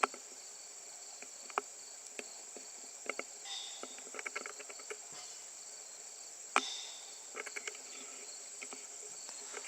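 Steady high-pitched chorus of insects, likely crickets, chirring without a break, with scattered light clicks and taps and one sharper click about six and a half seconds in.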